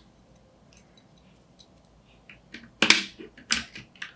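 Plastic keycap clicks as the Enter keycap is pried off a Keychron K7 Pro mechanical keyboard: a few faint ticks, then a quick run of sharp clicks in the second half, the two loudest about three and three and a half seconds in.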